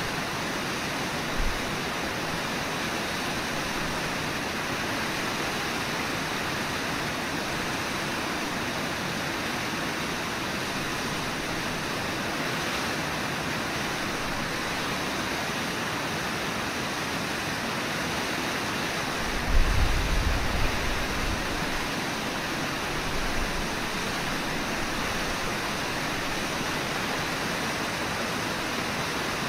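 Steady rushing of the Brooks River flowing over its shallows. About two-thirds of the way through, a brief low rumble rises over it.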